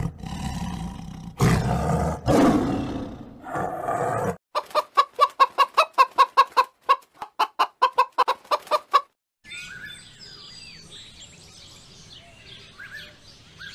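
A lion roaring in a few long, growling calls, then a hen clucking in a quick run, about four clucks a second. Faint chirps and calls of birds follow near the end.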